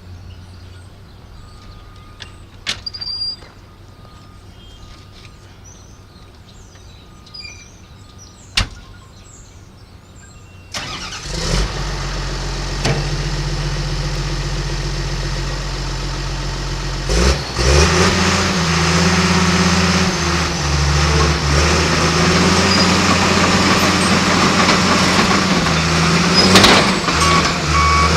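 John Deere 700J crawler dozer's diesel engine starting about a third of the way in and idling steadily, then revving up a little over halfway through, its speed rising and falling. Before the start there are a couple of sharp clicks.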